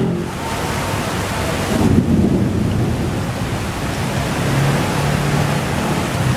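Thunderstorm: heavy rain with thunder rumbling, strongest about two seconds in.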